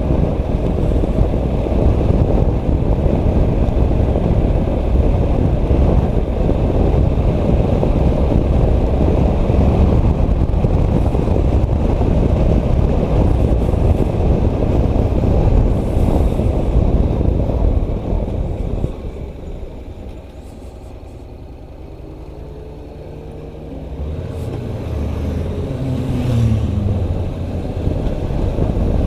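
Wind buffeting the microphone over the engine of a Honda NC700X motorcycle, a 670 cc parallel twin, while riding. About two-thirds of the way through, the wind noise drops away sharply as the bike slows. Near the end the engine climbs in pitch as it accelerates again.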